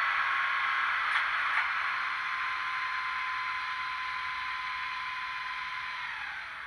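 DCC sound decoder of a Fleischmann N-scale SBB Re 4/4 II electric locomotive model playing a standing-locomotive running sound through its tiny loudspeaker: a steady hiss with a steady hum tone that slowly fades. Two faint clicks come about a second in, and near the end the tone dips in pitch and stops, as the sound winds down.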